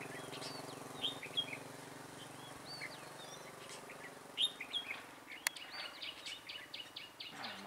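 Red-whiskered bulbuls calling: short chirps and whistled phrases, with a quick run of about seven notes a second near the end. A low steady hum sits under the first few seconds and fades out, and there is one sharp click about halfway through.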